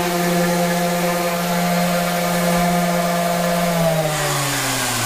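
Electric sander running at a steady pitch while sanding the edge of a Corian cutting board, then switched off about four seconds in, its motor winding down with a falling pitch.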